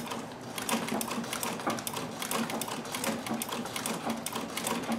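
Singer straight-stitch sewing machine running steadily with a zigzag attachment fitted, sewing a zigzag stitch: a rapid, even clatter of needle strokes.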